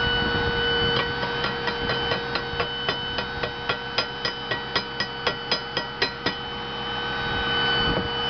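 Rapid metal-on-metal tapping on a freshly welded steel bar, about four strikes a second for around five seconds, knocking the slag off a stick weld. Underneath is a steady machine whine from the truck's raised-rev engine and belt-driven hydraulic pump powering the welder generator.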